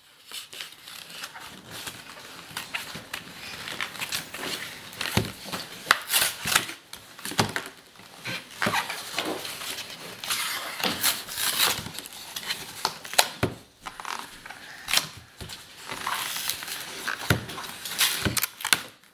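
Cardboard Play-Doh multipack box being handled and pulled open: crinkling and scraping of thin cardboard and paper, with frequent knocks and clicks as the box and plastic tubs bump the tabletop.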